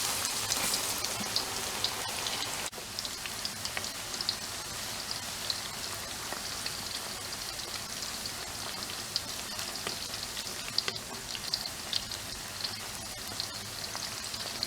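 Tempeh slices frying in hot oil: a steady sizzle with many small crackling pops.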